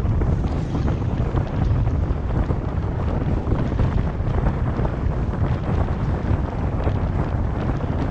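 Wind buffeting the microphone of a car-mounted camera, a steady low rumble mixed with the road noise of the car driving along.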